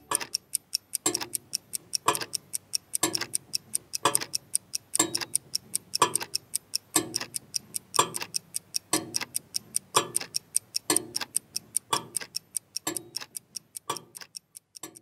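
Mechanical clock movements ticking: a loud tick about once a second, with fainter, quicker ticks in between, growing fainter near the end.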